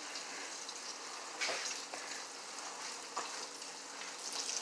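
Flour-coated chicken drumsticks deep-frying in a pan of hot oil: a steady sizzle with a few sharper pops.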